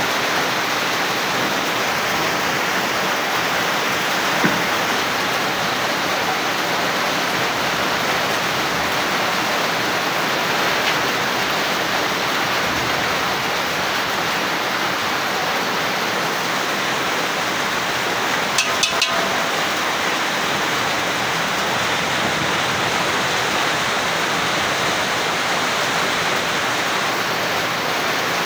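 Heavy rain falling steadily as an even hiss, with water streaming off the roof edge. A few quick knocks come about two-thirds of the way through.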